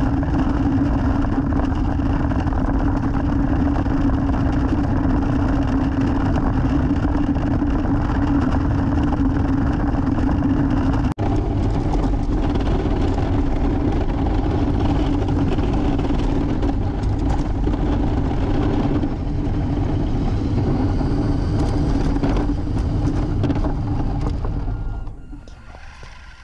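Electric drivetrain of a 1/14-scale Tamiya RC truck running on a concrete sidewalk: a steady motor and gear hum over tyre rumble, heard from on board. There is a brief break about 11 seconds in, and the sound dies down near the end.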